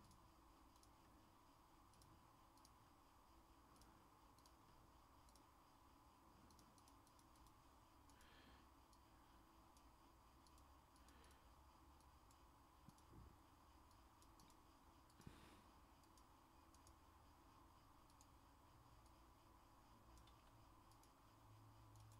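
Near silence: room tone with faint scattered clicks and a few soft knocks.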